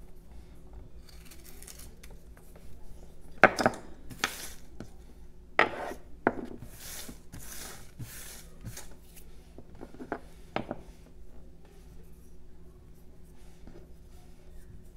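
Carving knife slicing chips off a jelutong block: a few crisp cuts, several close together, then two more later. In between, a hand brushes loose wood shavings across the wooden tabletop in a few quick sweeps.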